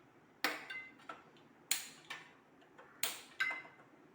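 Gas stove's ignition knob clicking as the burner is being lit: four sharp, ringing clicks at uneven intervals.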